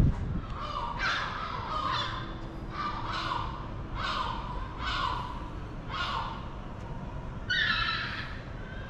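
A large bird calling: six harsh calls about one a second, then a longer, different call near the end.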